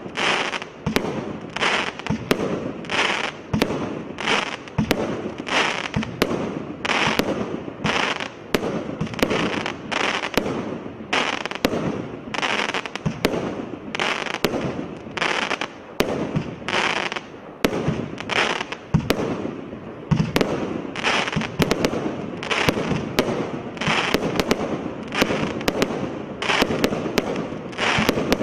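Twisted Twins 200-shot firework cake (2x100 shot) firing continuously, about two shots a second. Each shot is a sharp bang followed by a burst of stars.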